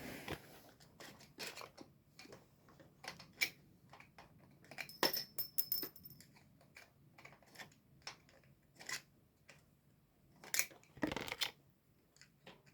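Small metal bicycle parts and tools clicking and clinking as the crank and bottom bracket are taken apart. There is a brief metallic ring about five seconds in and a couple of louder knocks or scrapes near eleven seconds.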